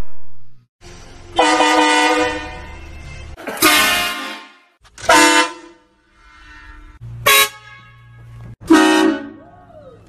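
A train horn sounding in a series of loud blasts, each a chord of several tones. The first blast lasts about two seconds; four shorter ones follow over the next six seconds.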